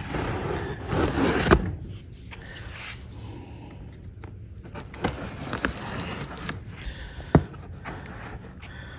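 Cardboard shipping box being handled and opened: scraping and rustling for about a second and a half ending in a sharp click, then scattered knocks and clicks, the loudest about seven seconds in.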